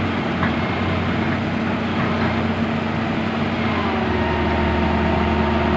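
Excavator's diesel engine running steadily, with a faint higher whine joining about four seconds in.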